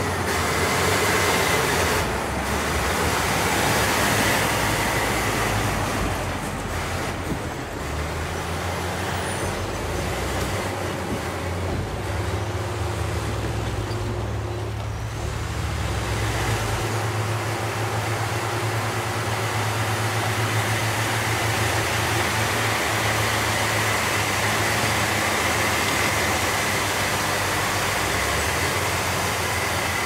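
Bulldozer's Cummins NT855 six-cylinder diesel engine running steadily under load as the dozer pushes earth, a loud continuous drone whose low note changes about halfway through.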